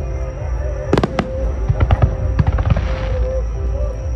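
Fireworks bursting: a loud sharp bang about a second in, then several smaller bangs and a crackling fizz near three seconds, over a constant low rumble. Music plays underneath.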